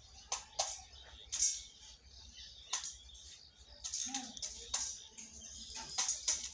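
Birds chirping in short, sharp, irregular calls, with a brief low coo about four seconds in.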